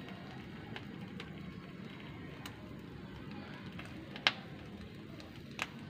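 Fish grilling on a wire grate over glowing charcoal: a steady low rush with scattered sharp crackles and pops from the coals. The loudest pop comes about four seconds in, with another near the end.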